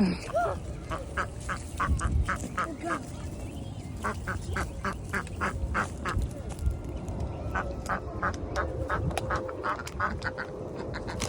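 Ducks quacking in quick runs of short calls, about three or four a second, in three bursts separated by brief pauses.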